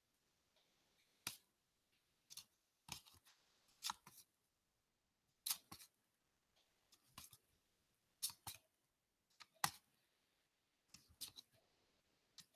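Near silence: room tone broken by about a dozen faint, short clicks scattered irregularly through the pause.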